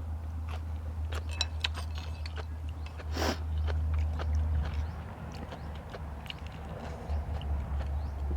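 Close-miked eating of noodle soup with fresh vegetables: chewing and biting with many small wet clicks, and a louder noisy burst about three seconds in, over a steady low hum.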